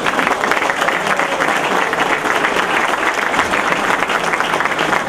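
An audience applauding: many people clapping steadily.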